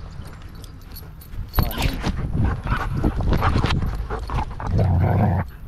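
Belgian Malinois panting close to a camera on its harness, with a louder low rumble near the end.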